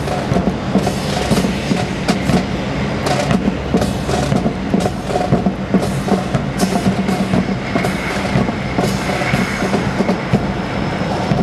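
Drill team's boots striking concrete in step as the formation marches, a run of sharp footfalls over a steady low hum.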